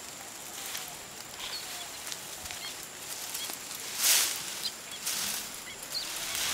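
Outdoor ambience with small birds chirping and a thin steady high tone under a soft hiss. It is broken by two louder rustling swells, about four and five seconds in.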